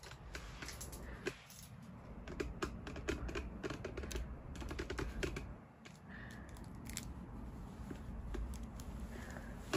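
Faint rustling of a bed duvet with scattered soft clicks and taps, close handling noise as a phone camera is brought up against the covers.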